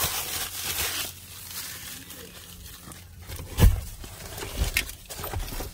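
Rustling and crinkling handling noise around a car's leather seats and a plastic bag. A sharp, loud knock comes about three and a half seconds in, then a couple of softer knocks.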